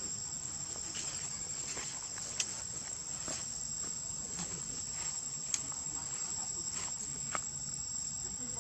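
Steady, high-pitched insect chorus that holds one unbroken tone throughout. A few brief sharp clicks stand out over it, three of them the loudest moments.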